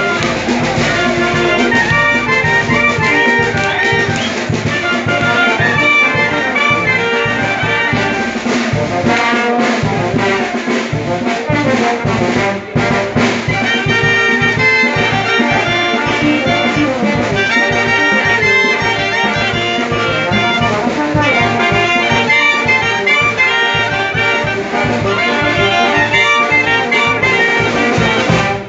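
Live brass band music: trombones, euphonium and saxophones with clarinets, playing a dance tune over a steady drum beat from congas, bass drum and cymbals.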